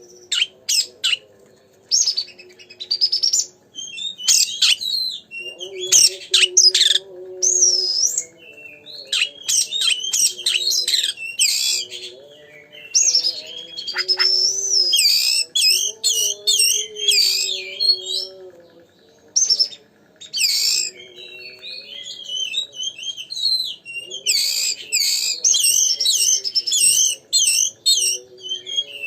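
Oriental magpie-robin (kacer) in full song: rapid phrases of varied whistles, chirps and trills broken by short pauses, over a faint low steady tone.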